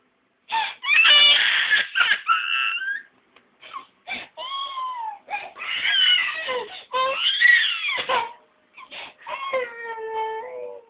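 Toddler crying hard: loud wailing cries in four long bouts, each broken off by a short gasp for breath. The last cry is a long, held wail.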